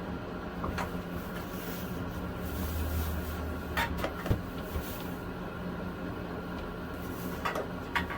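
A few scattered knocks and clunks, the sharpest just past the middle, over a steady background hum.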